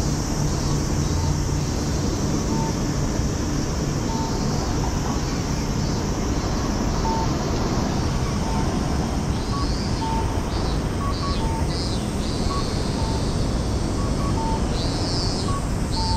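Steady city street noise with a traffic hum. In the second half, runs of short high chirps repeat every fraction of a second.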